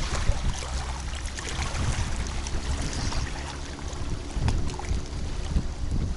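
Strong wind buffeting the microphone in an uneven low rumble, with water lapping faintly underneath.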